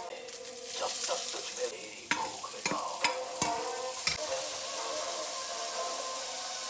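Chowmein noodles stir-frying in a hot pan: a steady sizzle, with a cooking utensil knocking and scraping against the pan several times in the first half. Faint background music underneath.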